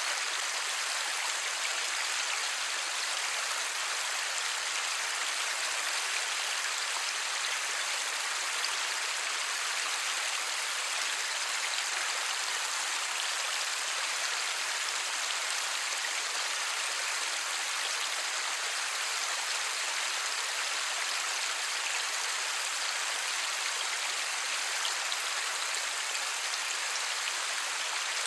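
Steady light rain: an even hiss of many small drops falling, with no thunder.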